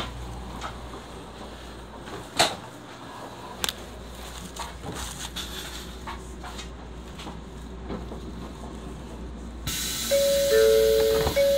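Muffled station rumble with a few handling knocks, then, near the end, the platform noise opens up and an electronic two-tone chime plays: a higher note and a lower note overlapping, sounded twice.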